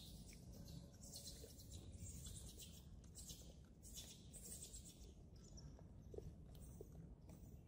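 Near silence: a faint low outdoor rumble with soft, intermittent high hiss and a few faint ticks.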